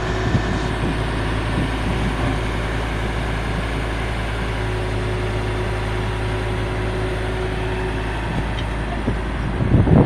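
Diesel engine of a 1972 Kaelble PR663B bulldozer running steadily, with a faint steady whine over it that fades about eight seconds in. Heavier uneven low rumbles come in near the end.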